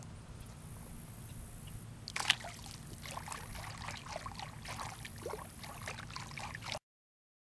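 A splash about two seconds in as a redear sunfish goes into shallow pond water, then hands sloshing and splashing in the water with small drips and trickles. The sound cuts out abruptly near the end.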